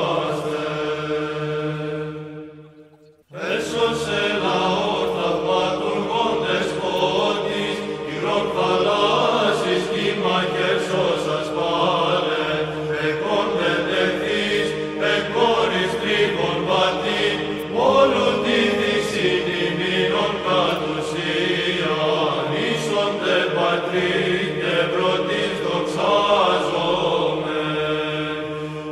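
Background music of a sung religious chant over a steady held drone. One piece fades out about two seconds in, and another begins a second later.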